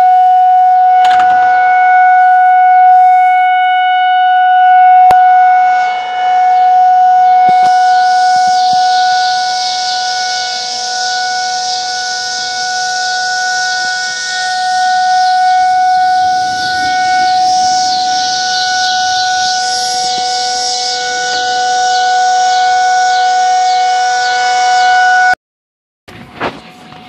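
Federal Signal 2001-SRN rotating electromechanical outdoor warning siren sounding a steady tone for a severe thunderstorm warning, its loudness slowly swelling and fading as it turns. It cuts off suddenly about 25 seconds in.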